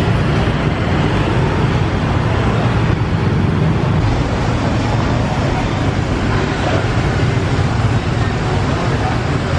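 Street traffic: motorbikes and cars going by in a steady stream of engine and tyre noise, heard from the roadside.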